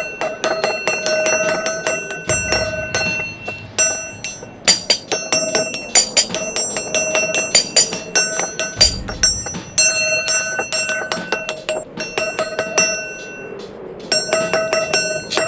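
A metal object struck rapidly and irregularly, ringing like a bell; every strike brings out the same set of ringing tones. There are a few short pauses between runs of strikes.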